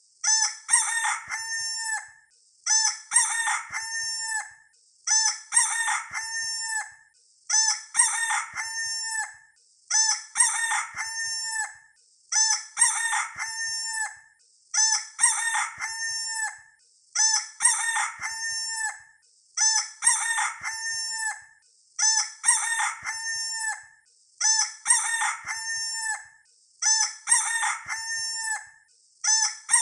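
A rooster crowing, the same recorded crow looped over and over about every two seconds with a brief pause between.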